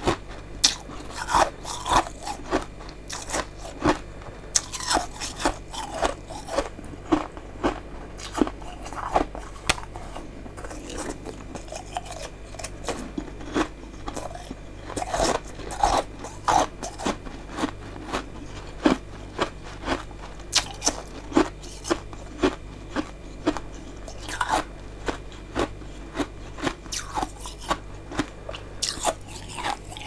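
Close-up crunching and chewing of chunks of freezer frost: a steady run of crisp, crackly bites and chews, roughly one or two a second.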